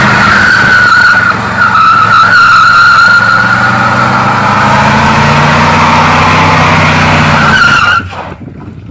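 Rear tire squealing in a burnout on a big 1960s car, with the engine held at high revs underneath; the squeal and engine cut off abruptly about eight seconds in.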